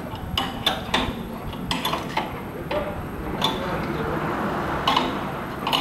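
Repeated metal clinks and knocks as the steel clamp rings and fittings of a polyethylene pipe butt fusion welding machine are handled and fitted. A longer stretch of scraping noise comes a little past halfway.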